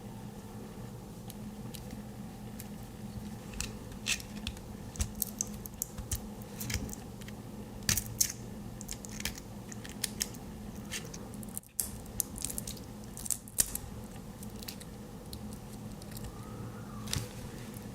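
Small, irregular clicks and ticks of hands handling a Swiss Army knife and a tiny neodymium magnet, over a steady low hum.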